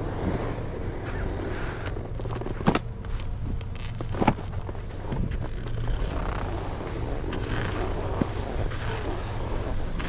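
Wind buffeting the microphone during a ski run, a steady rushing noise with a low rumble. Two sharp knocks come through, one near three seconds in and one about four seconds in.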